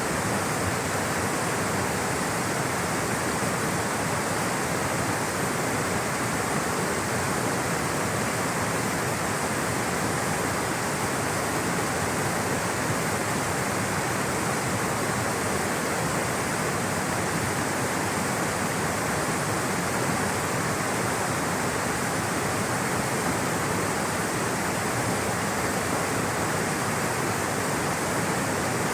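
Water rushing steadily in a stream or small waterfall, a constant even roar without breaks.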